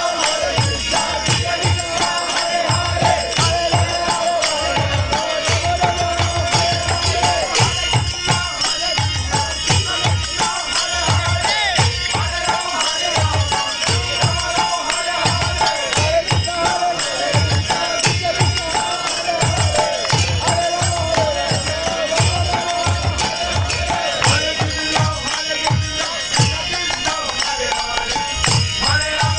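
Devotional kirtan: a chanting voice over a steady, repeating drum beat with continuously ringing hand cymbals.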